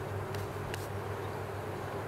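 Open honeybee colony humming steadily, with two faint ticks under a second in.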